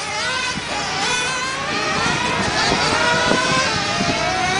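Several 1/10 scale nitro RC cars racing, their small glow-fuel engines whining at high pitch and rising and falling in overlapping notes as the drivers throttle and brake around the track.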